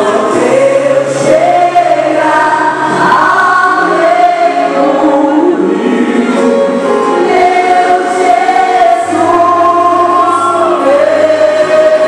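Gospel worship song: voices singing long held notes that glide between pitches, over a steady bass accompaniment.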